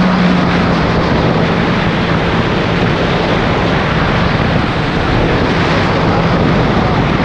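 Sea-Doo Wake 155 personal watercraft running flat out, its three-cylinder four-stroke engine droning steadily under a dense rush of wind on the microphone and water noise from the hull. The engine's hum is strongest at the start and sinks into the rush about half a second in.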